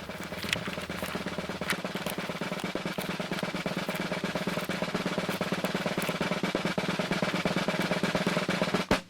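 Snare drum roll that slowly builds in loudness, closed off by a single sharp hit near the end: a suspense roll leading up to a reveal.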